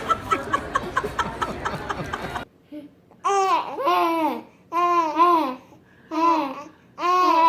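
A baby laughing in a run of separate high, arching squeals, about one a second. Before them, about two and a half seconds in, a stretch of busy background noise with rapid clicks stops abruptly.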